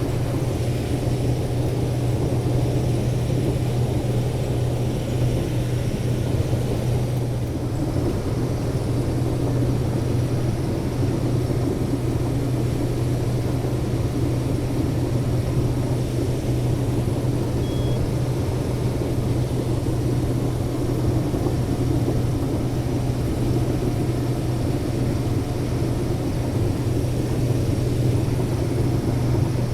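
Case IH 2388 combine running steadily while harvesting corn: a constant low diesel engine drone with machinery noise over it.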